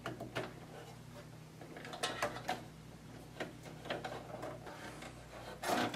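Scattered small clicks and light metallic knocks of a steel drive cage being handled and fitted into a desktop computer case, with a louder cluster near the end.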